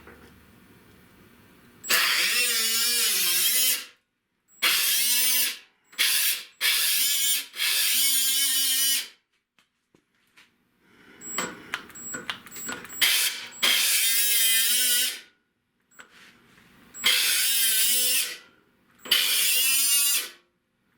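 A power cutting tool cutting sheet steel in repeated short bursts. Its motor whine wavers and sags in pitch as it bites into the metal, then stops between cuts.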